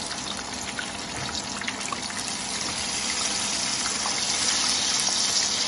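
Chicken pieces frying in hot oil in a pan: a steady sizzle with fine crackles, growing a little louder toward the end.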